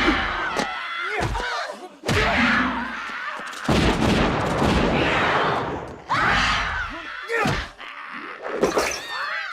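Film action sound effects: several sudden loud, noisy blasts, each trailing off over a second or two, with short cries between them.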